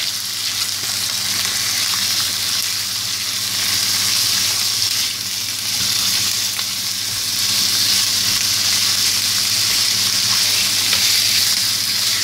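Beef ribs sizzling steadily in hot oil in a non-stick frying pan while a silicone spatula turns and scrapes them, with a steady low hum underneath.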